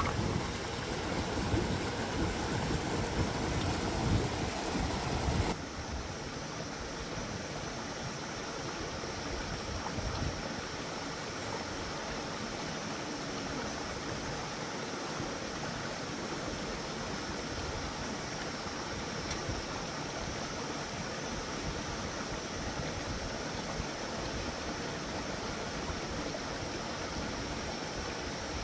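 Shallow stream running steadily over rocks. A few sharp knocks stand out in the first five seconds, after which the sound drops a little and stays even.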